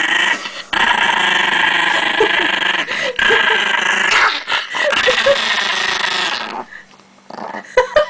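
Chihuahua growling, one long rough growl with brief breaks about half a second and three seconds in, stopping about six and a half seconds in. It is a guarding warning growl at a hand reaching for the pancakes it stands on.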